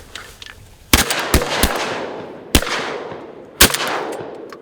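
A volley of shotgun blasts from several hunters firing at mallards: about five shots in under three seconds, starting about a second in, the three loudest close by and each trailing off in a long echo.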